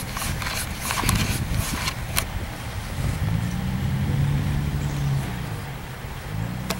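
An engine revs up about three seconds in, holds for about two seconds, then drops back, and rises again near the end. A run of sharp knocks and clanks fills the first two seconds.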